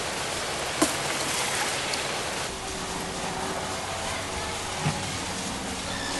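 Steady rush of running water, with two short sharp knocks, about a second in and near the five-second mark.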